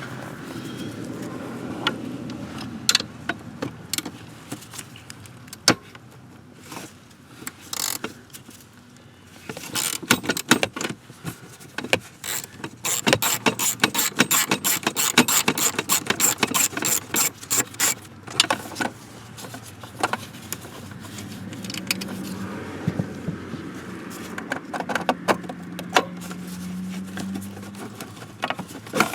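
Hand-tool and car-part work: scattered clicks, knocks and metallic clinks, with a long run of rapid clicking in the middle.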